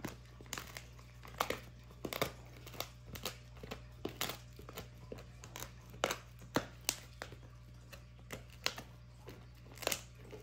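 German shepherd puppy chewing a dried boar ear: irregular crunches and cracks, several a second, as her teeth work the ear, over a low steady hum.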